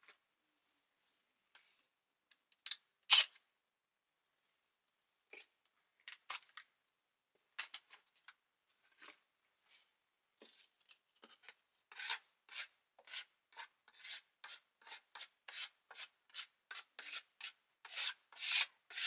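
Abrasive rubbing strokes on wood, worked by hand: a few scattered scrapes at first, then from about twelve seconds in a steady back-and-forth of two to three strokes a second that grows louder near the end.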